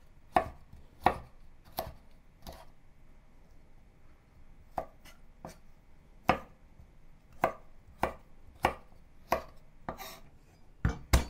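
Chef's knife cutting broccoli stem and florets into small pieces on a wooden cutting board: single sharp knocks of the blade on the board, four strokes, a pause of about two seconds, then a steady run of about nine more at one or two a second.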